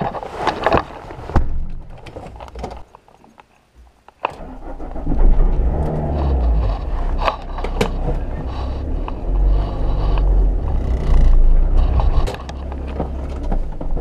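Car door shutting about a second in, then the car's engine starting just after four seconds in and running with a steady low rumble.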